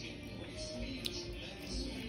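Soft background music with faint held notes, and a single small click about a second in.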